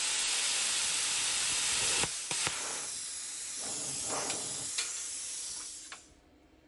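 Bestarc BTC500DP plasma cutter cutting a thin steel strip at 15 amps: a loud, steady hiss of the arc and compressed air. About two seconds in the hiss drops somewhat and carries on with a few light clicks, which is the torch's air still flowing after the cut, until it cuts off suddenly near the end.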